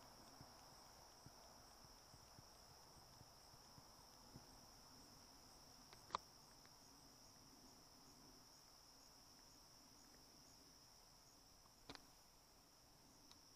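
Faint, steady, high-pitched trilling of insects. Two sharp clicks, the louder one about halfway through and another near the end.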